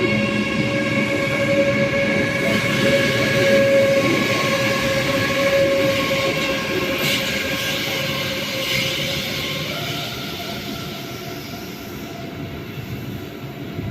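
Electric train passing, a low rumble with a steady stacked whine from its electric drive. The whine jumps up in pitch about ten seconds in. The sound peaks a few seconds in, then slowly fades as the train draws away.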